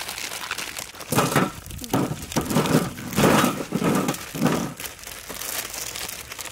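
Plastic instant-noodle packets crinkling as they are handled and opened, in a run of irregular rustling bursts from about a second in to nearly five seconds, then softer rustling.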